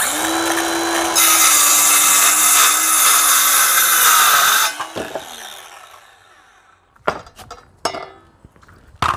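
Ryobi cordless circular saw spinning up, then cutting across a wooden board for about three and a half seconds; once the blade is through, the motor winds down with a falling whine. A few sharp knocks follow near the end.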